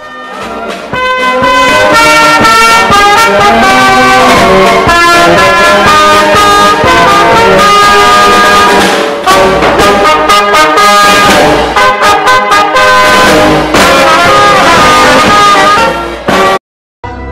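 Naval brass band playing, with trumpets, saxophones, euphonium and snare drum. It is loud, fades in at the start and cuts off abruptly near the end.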